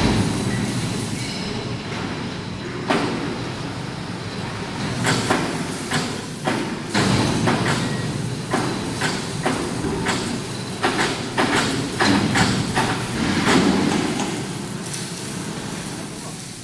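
An overhead crane and workshop machinery keep up a steady rumble while a long steel column hangs on a sling from the crane hook. Many sharp metallic knocks and clanks come at irregular intervals throughout.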